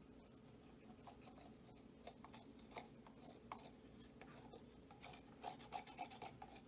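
Plastic cup scraped across a canvas to spread a thin coat of white paint: faint, scattered scraping strokes that come thicker and a little louder near the end.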